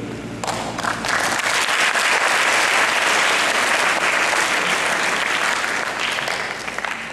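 Audience applauding: the clapping starts about half a second in, builds quickly, and dies away near the end.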